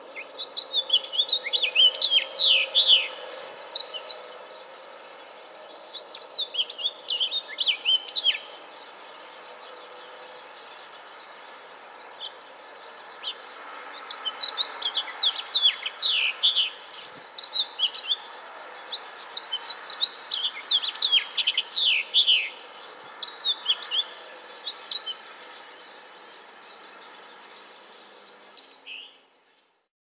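House finch singing: four long, rapid warbling phrases of jumbled notes, some sweeping up high, with pauses of a few seconds between them, over steady low background noise. The recording fades out near the end.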